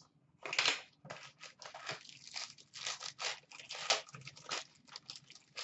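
A trading card box being opened by hand: a quick run of short crinkling, scraping rustles of its packaging.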